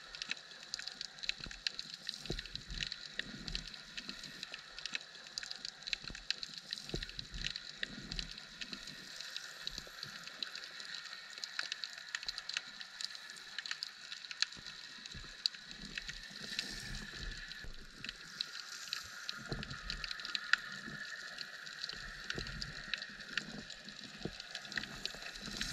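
Underwater ambience picked up by a submerged camera: dense, steady crackling clicks over a hiss, with a faint high steady whine and irregular low thuds of water moving against the housing.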